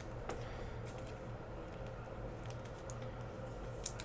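Trading cards being handled: scattered faint clicks and taps as cards are shuffled and set down, over a steady low hum.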